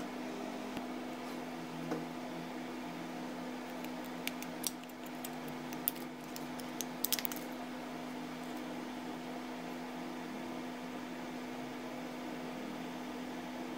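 A steady background hum, with a few small sharp clicks and taps between about four and seven seconds in as a screwdriver pries at a pager's metal frame and plastic case.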